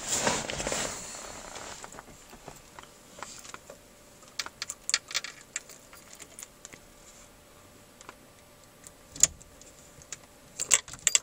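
Rustling and handling noise for about two seconds, then scattered small clicks and light rattles from hands working the dashboard switches of a 1954 Bentley R Type, with the engine not yet running. A cluster of sharper clicks comes near the end.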